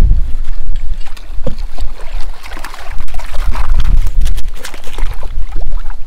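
Water splashing and dripping as a landing net is swept through the lake and lifted out to bring in a fish. Underneath, wind rumbles on the microphone and small waves lap the inflatable boat.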